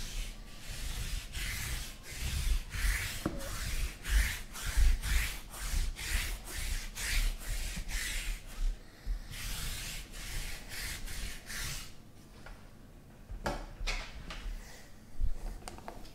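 Hands rubbing and sliding against trading-card packs: a run of rasping strokes, about two a second, that stops about twelve seconds in, followed by a few scattered light knocks.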